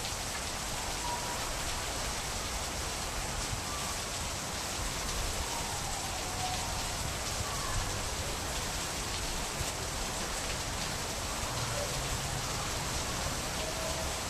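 Steady rainfall, an even, unbroken hiss of rain coming down.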